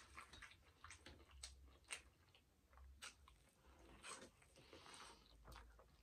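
Faint eating sounds: chewing and biting into corn on the cob, heard as a scattering of small crisp clicks and crunches.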